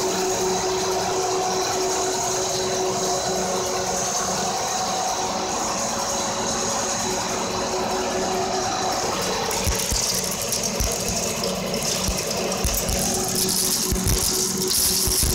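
Artificial rice production line running: a steady machinery hum with several held tones. About ten seconds in, a hiss of extruded rice grains pouring into a cardboard box joins it, with a few low thumps.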